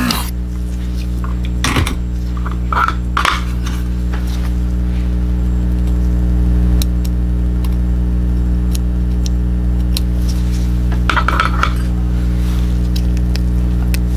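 Light clicks and small metallic clinks of a soldering tool against a mouse's microswitches and switch board as the switches are desoldered, a few scattered taps over a steady low hum.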